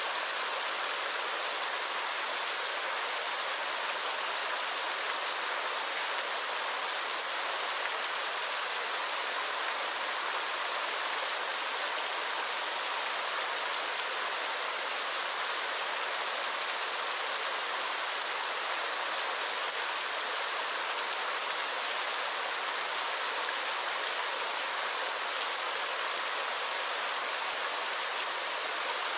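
Steady rushing water, an even hiss with no drips, splashes or changes.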